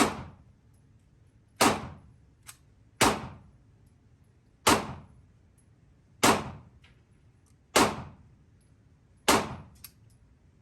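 Seven rifle shots fired one at a time, about a second and a half apart, each trailing off in a short echo of the indoor range.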